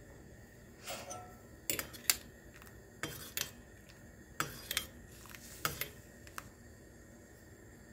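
A steel spoon clinking against a stainless steel saucepan as milk coming to the boil is stirred. It makes a dozen or so short, sharp clinks in small irregular clusters, starting about a second in and stopping a little after six seconds.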